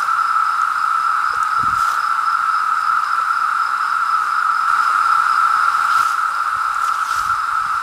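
Chorus of 17-year periodical cicadas (Magicicada): a loud, steady drone at a single pitch that never breaks.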